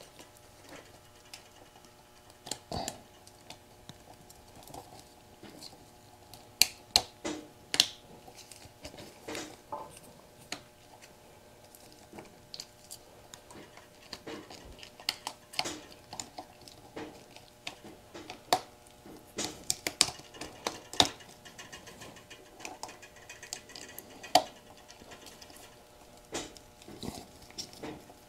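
Hands handling a motorcycle wiring harness and its plastic connectors: irregular clicks, taps and rustles of plastic and wire, loudest in clusters about a quarter of the way in and again about two-thirds through.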